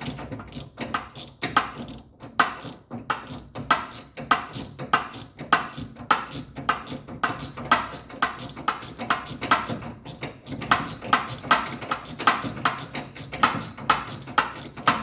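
Socket ratchet clicking steadily, about three to four clicks a second, as it is worked back and forth on a long bolt of the steering rack mounting.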